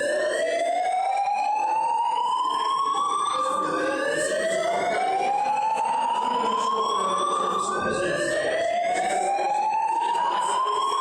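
A building fire alarm's evacuation tone, a slow whoop: a loud, pitched tone that sweeps upward over nearly four seconds, drops back and sweeps up again, three times.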